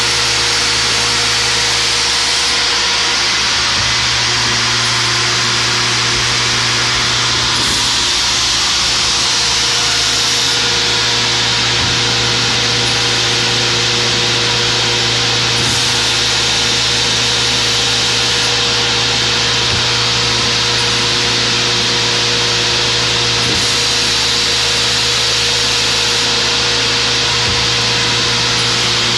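Scotchman CPO315 HFA cold saw running steadily: a constant motor hum and hiss, with a faint knock about every four seconds.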